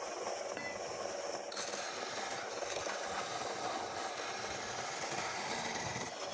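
Wood lathe running with a steady scraping rattle as the spinning palm wood ball is worked, the sound changing abruptly about a second and a half in.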